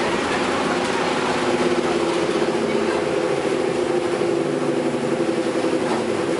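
A steady mechanical drone: several held tones over an even rushing noise, unchanging throughout.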